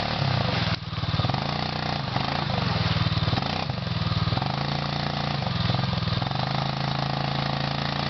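ATV engine revving up and dropping back several times as the quad works to climb out of a muddy creek bed.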